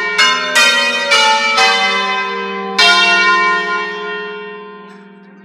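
Five-bell Ambrosian-system church bell peal in F playing a preset concerto. About five strokes fall in the first three seconds, then the ringing tones die away slowly.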